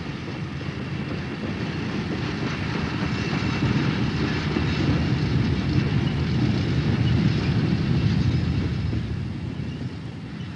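Freight cars of a steam-hauled freight train rolling past on the rails with a steady rumble. It swells to its loudest about seven to eight seconds in, then fades near the end as the train moves away.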